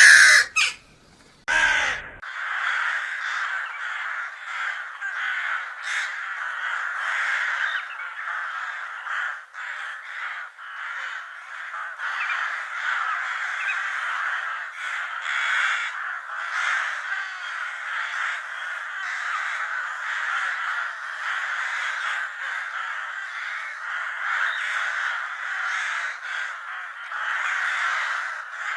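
A flock of crows cawing, many calls overlapping in a dense, continuous chorus after a brief pause about a second in.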